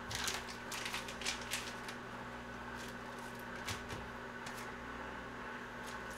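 Stiff naengmyeon noodle strands rustling and crackling as hands pull a bundle apart in a plastic tray. The crackle is thickest in the first two seconds, then single ticks follow, over a steady low hum.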